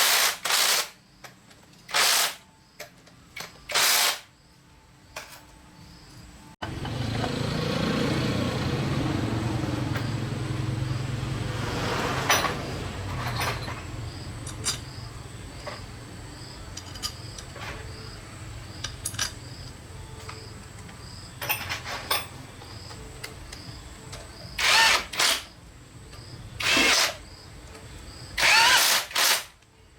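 Workshop machinery: a few short bursts of a power tool. About six and a half seconds in, a motor starts abruptly and runs steadily, then fades somewhat. Several more short power-tool bursts come near the end.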